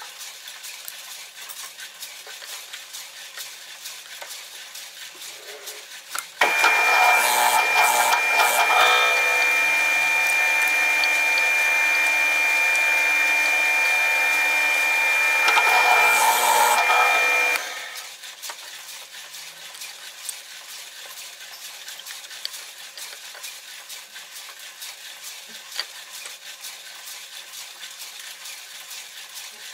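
Bench drill press with a Forstner bit: the motor starts about six seconds in, runs with a steady whine for about eleven seconds and stops. The bit cuts into wood twice during the run, once shortly after it starts and again just before it stops. Before and after the run there are only faint handling clicks.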